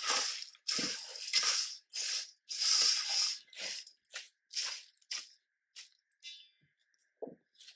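A popcorn, cornflake, pretzel and potato-chip mix crackling and rustling as a rubber spatula folds melted marshmallow through it in a stainless steel bowl. The stirring strokes come about twice a second, then thin out to a few faint crackles near the end.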